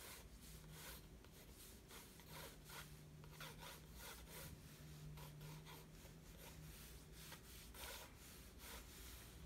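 Graphite pencil scratching on sketchbook paper in a run of short, faint strokes, several a second.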